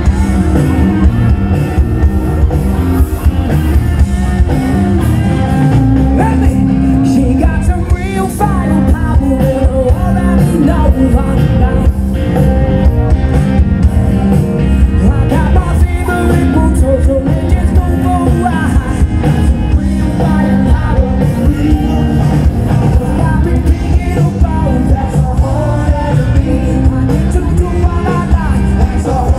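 Live rock band playing loud through a concert PA, with a male lead singer, heard from within the crowd.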